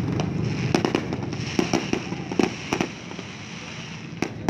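Fireworks going off: a string of sharp bangs and pops at irregular intervals over a steady background noise.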